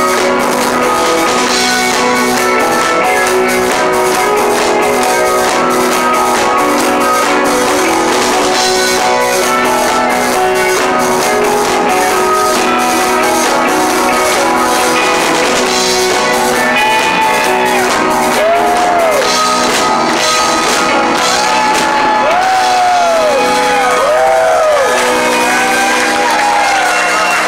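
Live rock band playing an instrumental-style number: electric guitars over bass and drums. In the second half a lead line bends its notes up and down.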